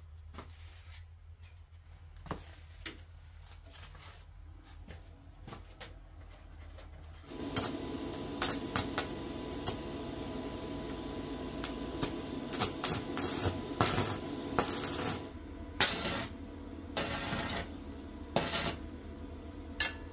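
Stick arc welding on a frame of iron bars: about seven seconds in, the arc strikes and then runs with a steady crackle and buzz, with a few sharper pops in the last few seconds. Before the arc starts there are only faint clinks of the metal frame being handled.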